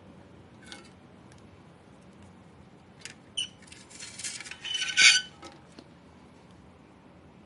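Small hard parts clinking and rattling, typical of handling the screws and metal parts of a graphics card during disassembly. A few single clicks come first, then a quick run of clinks about three to five seconds in, loudest at its end, followed by two light ticks.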